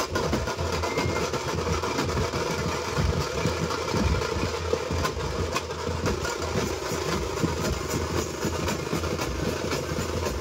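A South Indian funeral drum troupe plays fast, continuous drumming: large bass drums struck with sticks under a dense patter of smaller stick-played drums.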